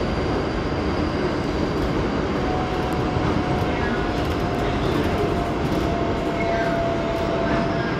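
New York City Subway 7 express train running at speed, heard from inside the car: a steady rumble of wheels on rail. A thin steady whine comes in about two and a half seconds in.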